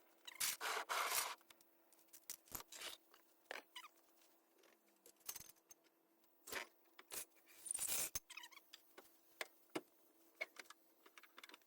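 Faint scattered clinks, clicks and rustles of hand tools being handled during suspension work on a car, over a faint steady hum.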